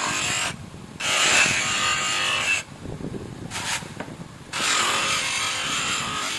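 Abrasive rubbing against the metal of a rear drum brake cover as it is worked for polishing, a continuous scraping rasp that stops briefly three times.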